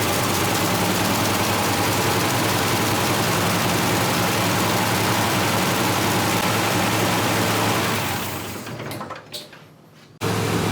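1969 Volvo 164's straight-six engine running steadily at idle. The sound fades away over about two seconds near the end, then cuts back in abruptly.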